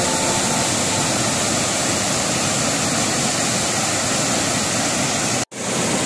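Waterfall's water rushing steadily, cutting out for an instant about five and a half seconds in.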